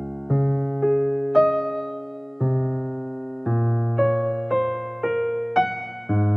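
Background music: a keyboard playing a slow, gentle melody, with notes struck about every half second to a second and each one fading away.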